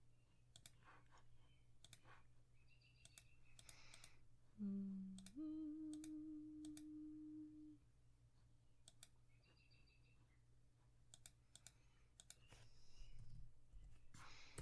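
Soft, scattered clicks of a computer mouse and keyboard as someone works at a computer. About five seconds in, a low steady tone sounds: one short note, then a slightly higher note held for about two seconds.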